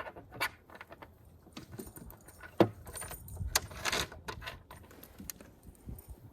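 Small metal hardware clinking and rattling: quarter-inch carriage bolts being handled and slid along a snowmobile tunnel's T-slot rail, with scattered clicks, one sharp metallic clink about two and a half seconds in, and a burst of rattling a little later.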